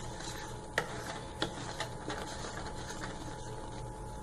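Wooden spatula stirring and scraping a thick, thickening milk-powder and condensed-milk mixture in a nonstick pan, with a few sharp taps of the spatula against the pan in the first half, over a steady low hum.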